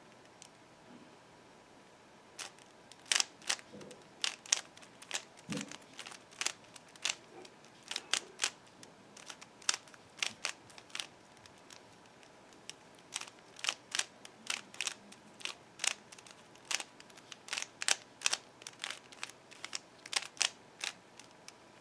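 Layers of a Dayan Guhong 3x3 speed cube being turned by hand: a run of sharp clicks in quick, irregular clusters, starting about two seconds in, with a short pause near the middle.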